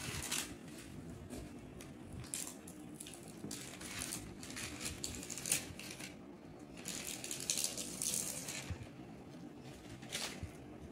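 Brown paper and plastic wrapping rustling and crinkling as it is pulled off an acrylic wall clock, in short crackling bursts; the biggest bursts come a little after 2 seconds, around 7 to 8 seconds and about 10 seconds in.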